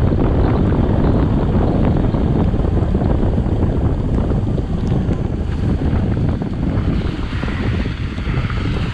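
Heavy wind noise on the microphone from riding at speed, over the low running of a BMW R1100RT's air/oil-cooled boxer twin. It eases off a little near the end.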